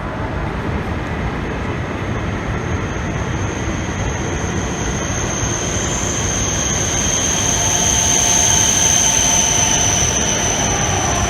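Shinkansen train running along the platform, its noise building up and getting gradually louder. A steady high-pitched whine comes in strongly from about halfway through.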